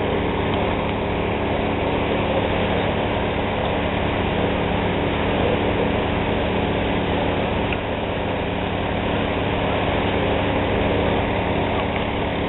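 A fire-fighting pump engine running steadily at constant speed, an unbroken engine drone with an even hiss over it, feeding the hose lines at a building fire.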